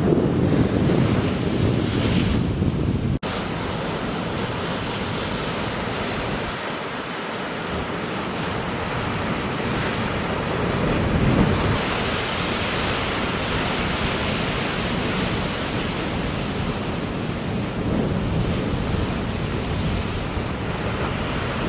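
Ocean surf washing and breaking, with wind blowing across the microphone. There is a split-second gap in the sound about three seconds in.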